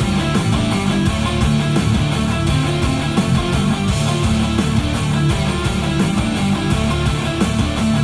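Guitar music with a strong bass line playing loudly and steadily through the Toyota Tundra TRD Pro's 12-speaker JBL stereo with subwoofer, heard from the driver's seat inside the cabin.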